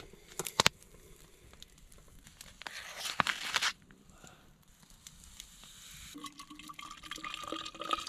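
A couple of light clicks, then a packet of apple cider drink mix torn open about three seconds in. Near the end comes a steady pouring sound as liquid runs from a metal pot into a plastic water bottle.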